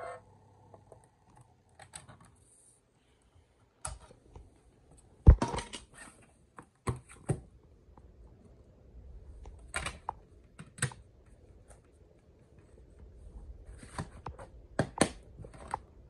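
Sharp plastic clicks and clatters from handling a DVD disc and its black plastic keep case: the disc is pressed onto the case's hub and the case snapped shut. The loudest click comes about five seconds in, and two quick clicks close together come near the end.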